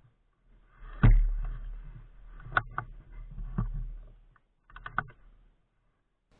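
Handling noise from a ghillie-wrapped airsoft sniper rifle carrying the camera. A heavy knock about a second in is followed by rustling of the ghillie material and sharp clicks, then a quick cluster of clicks near the end.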